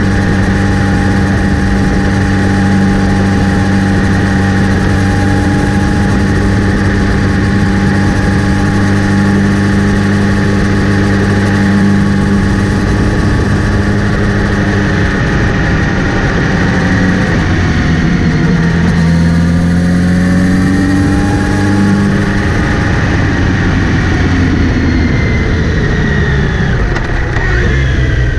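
Kawasaki Z900RS inline-four motorcycle running with a whirring noise, which seems to come from the front sprocket area. The note holds steady at first, dips and climbs again about two-thirds of the way through, then rises near the end.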